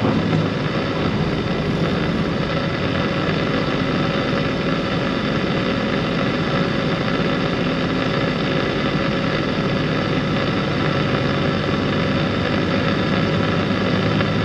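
Steady drone of a vehicle driving, heard from inside its cab: engine hum with road and wind noise, holding an even pitch and level throughout.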